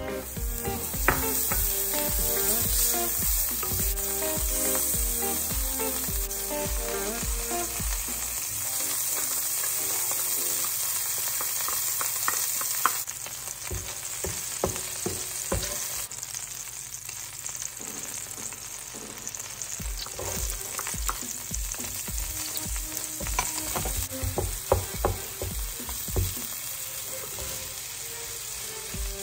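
Butter frying in a hot non-stick pan, a steady sizzle, then chopped onions frying and being stirred with a spatula, with scraping and light taps against the pan.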